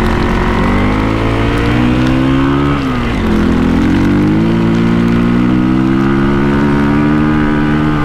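Motorcycle engine accelerating, its pitch climbing steadily, then dropping and building again about three seconds in as it shifts up a gear, and climbing until it eases off near the end.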